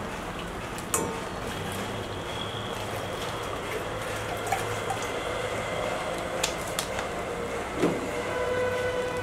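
Thick almond chicken gravy simmering and bubbling in a pan on a gas stove: a steady hiss with a few small sharp pops.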